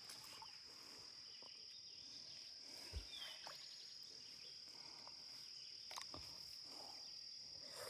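Faint, steady high-pitched insect trill, with a couple of faint clicks about three and six seconds in.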